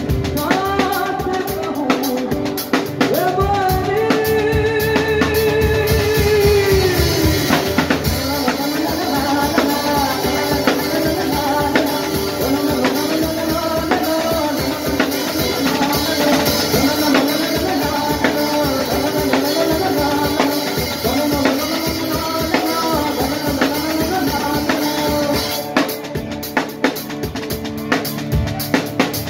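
Live band: a male vocalist sings a long melodic line over strummed acoustic guitar and a drum kit with cymbal.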